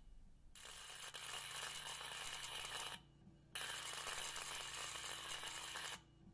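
Homemade sinker (ram) EDM sparking under water between a copper electrode and a steel workpiece, a dense crackling buzz from the aggressive discharges of a large, about 100 µF capacitor. The crackle stops for about half a second at the start, again about 3 s in, and again near the end, as the electrode backs off to flush the gap.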